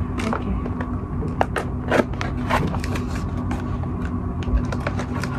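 Steady low background hum from an unseen source, over which cardboard packaging and a plastic scraper are handled with many short clicks, crackles and scrapes.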